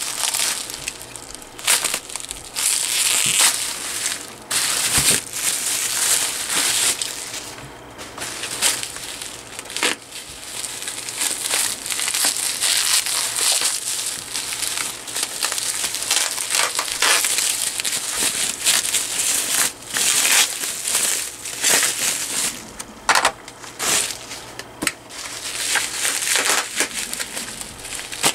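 Plastic bubble wrap crinkling and rustling in the hands as it is pulled off and balled up, with many short sharp crackles throughout.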